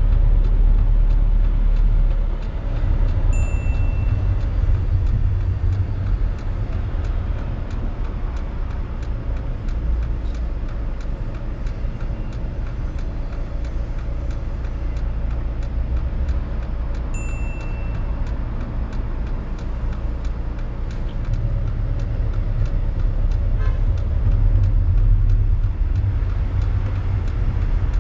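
Steady low rumble of a car's engine and tyres heard from inside the cabin while driving on the road. Two short high beeps sound, about 3 seconds in and again about 17 seconds in.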